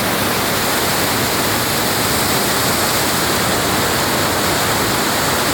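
Waterfall rushing, a loud steady wash of falling water.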